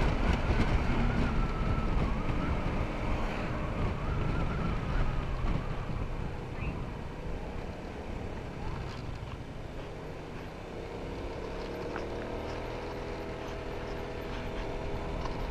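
Wind rushing over the microphone of a moving motor scooter, with the scooter's small engine whining underneath. The rush fades as the scooter slows through the middle, and the engine note climbs again near the end as it speeds up.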